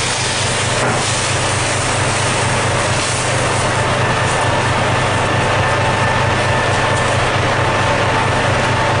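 Steady, loud running noise of a fishing vessel's engine and deck machinery with a constant low hum, mixed with the rushing hiss of a fire hose spraying water across the deck.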